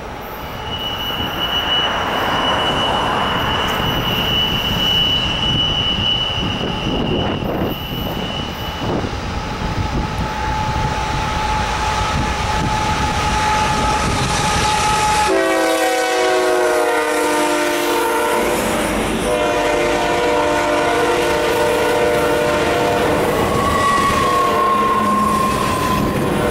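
A freight train led by a Kansas City Southern GE ES44AC diesel locomotive approaches with a growing rumble of engines and wheels. About halfway through, the locomotive's air horn sounds a loud multi-note chord that drops in pitch as the engine goes by, and keeps sounding while the double-stack intermodal cars rumble and clatter past.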